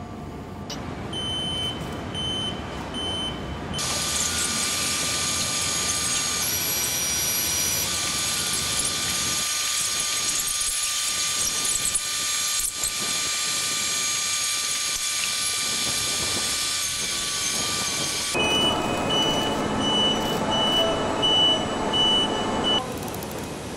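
Aircraft assembly-hall machinery noise: a repeating high beep in the first few seconds and again near the end, with a steady loud hiss and a few steady whining tones in between.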